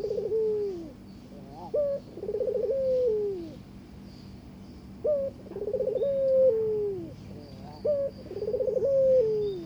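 Burung puter (domestic ringneck dove) giving its courtship coo to a mate, four times: each call a short sharp rising note followed by a long rolling, pulsing coo that falls in pitch.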